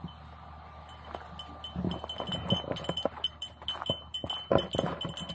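Footsteps crunching on a gravel trail, starting about two seconds in, with a dog's metal collar tags jingling in time with the walking.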